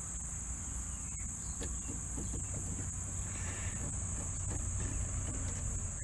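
Steady high chirring of crickets over a low background rumble, with a few faint light ticks as a screw is turned in by hand with a screwdriver into a lock on the RV's baggage door.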